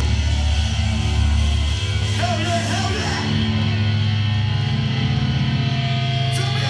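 A live hardcore band's distorted electric guitars and bass holding a ringing chord, with steady amp tones and no drum beat. A voice shouts briefly about two seconds in.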